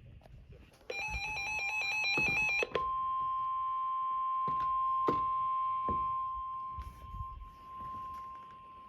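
Emergency alert signal: a short, buzzy data burst of rapidly stepping tones (the encoded alert header), then a steady single-pitch NOAA Weather Radio warning alarm tone of about 1050 Hz that starts about three seconds in and holds. It announces a severe thunderstorm warning. A few faint clicks sound over the tone.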